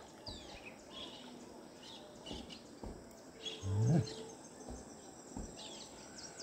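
Birds chirping in short, falling notes every second or so over a faint, even outdoor background. A short pitched call, louder than the chirps, comes about three and a half seconds in.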